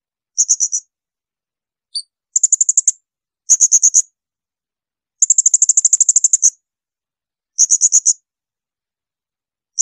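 Blue-crowned hanging parrot (serindit) giving shrill call series: about six short bursts of rapid, evenly repeated high notes with gaps between them, the longest burst running over a second a little past the middle, plus one single note about two seconds in.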